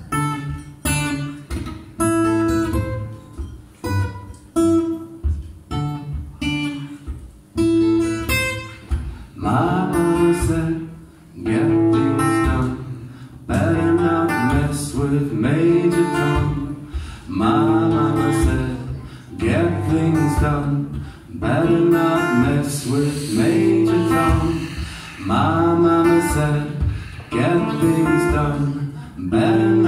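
Live solo acoustic guitar with a man singing. Single picked notes for the first several seconds, then fuller strummed chords in a steady rhythm from about ten seconds in.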